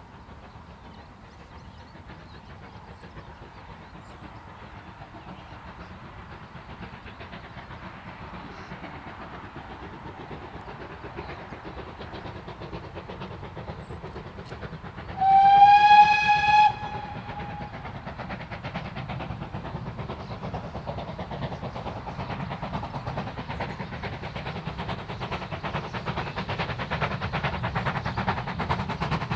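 Steam locomotive approaching, its running sound growing steadily louder, with one blast of its whistle lasting about a second and a half midway.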